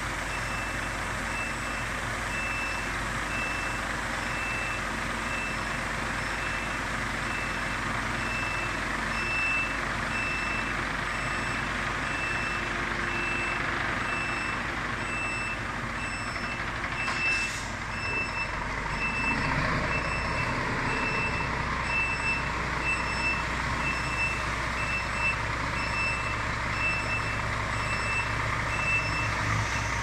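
Scania XT truck reversing: its reversing alarm sounds steady, evenly spaced high beeps over the running diesel engine. About two-thirds of the way through there is a short hiss, and the engine then works harder.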